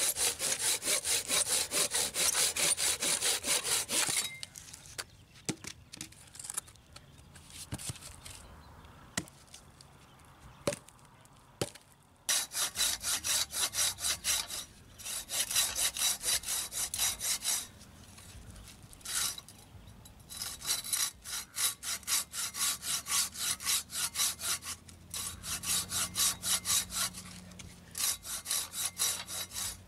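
Silky BigBoy folding hand saw cutting through wood in quick back-and-forth strokes, about three to four a second. It saws in bouts: a long run at the start, a pause of several seconds with only a few light clicks, then several shorter runs with brief breaks between them.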